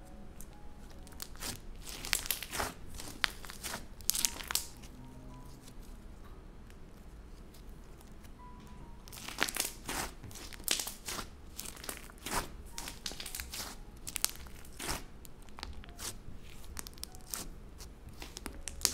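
Thick white borax-and-glue slime being folded, pressed and kneaded by hand on a wooden table. It gives quick runs of sticky clicks and pops in bursts, about two to five seconds in and again from about nine to fifteen seconds.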